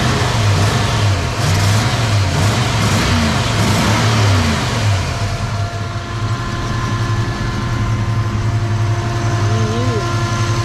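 Turbocharged 302 V8 engine revved up and down several times, then settling into a steady idle about halfway through.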